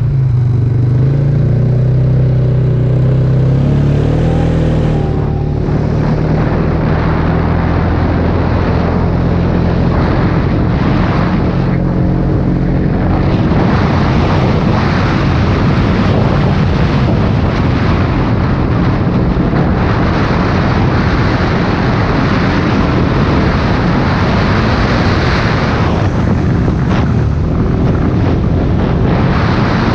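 Polaris Sportsman 570 ATV's single-cylinder engine running under way, its pitch climbing about four seconds in as it accelerates. From then on it is largely buried under wind buffeting the helmet-mounted microphone.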